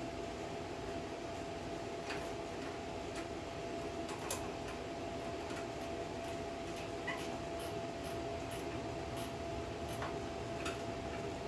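Steady hum of a running fan with a constant tone, with scattered light clicks and taps of tools being handled.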